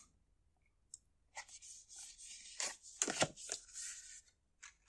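Product packaging being handled during an unboxing: an irregular run of rustling and crinkling, with a few sharper crackles about three seconds in.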